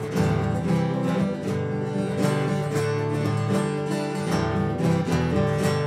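Acoustic guitar strummed in a steady rhythm, chords ringing, as an instrumental fill between sung lines of a folk song.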